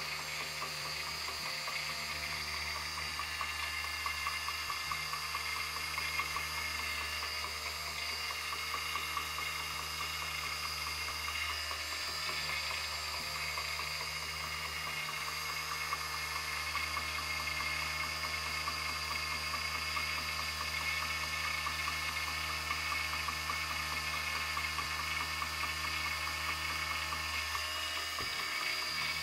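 Small electric drive motor of a walking cube robot, powered from an 8.4 V supply, running continuously with a steady whirring whine and a low hum underneath.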